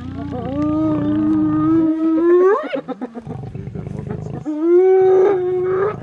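Spotted hyenas calling in drawn-out wails, each held on one pitch; the first climbs sharply at its end and a second follows about a second and a half later. Low rhythmic growling runs underneath, from a lioness on a carcass being mobbed by the hyenas.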